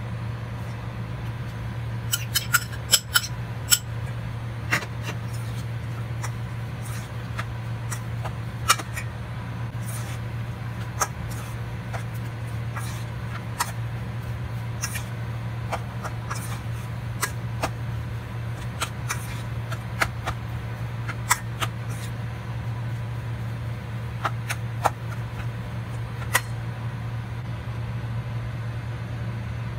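Metal fork clicking and scraping against a stainless steel pot while a shredded chicken filling is stirred, in scattered irregular clinks over a steady low hum.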